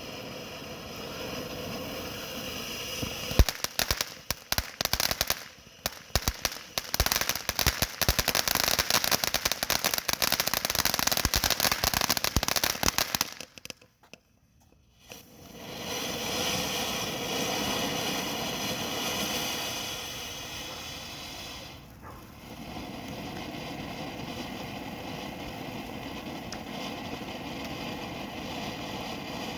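TNT Lemon Lime firework fountain burning: a steady hiss, then from about three seconds in a dense, rapid crackling for some ten seconds. It drops almost to silence for a moment, then a steadier rushing spray runs on to the end.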